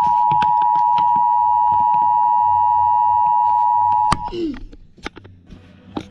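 Emergency Alert System two-tone attention signal: a loud, steady two-note tone that cuts off abruptly with a click about four seconds in. Scattered clicks run through it, and a short falling glide follows the cut-off.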